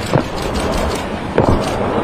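A rapid string of distant explosions from a bombardment: repeated booms and thuds over a continuous rumble, with stronger hits near the start and about one and a half seconds in.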